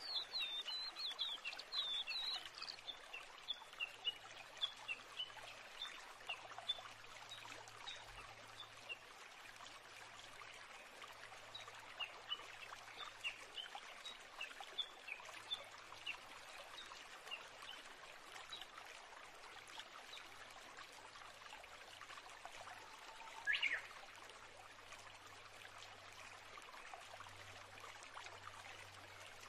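Faint birds chirping in many quick short calls over a steady rush like trickling water, with one louder rising chirp about 23 seconds in.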